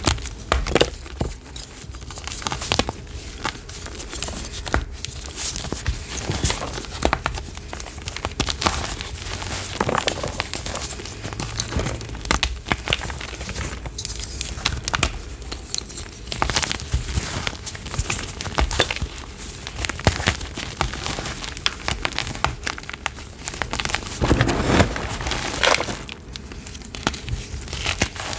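Blocks of gym chalk being crushed by hand: a dense, irregular crunching and crackling as the chalk crumbles.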